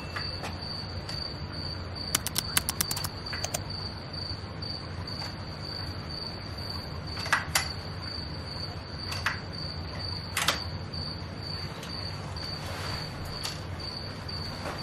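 Crickets trilling in one steady high note over a low hum. Sharp clicks and rattles come from the door's key-card lock and handle as they are tried, in a cluster about two seconds in and then singly a few more times.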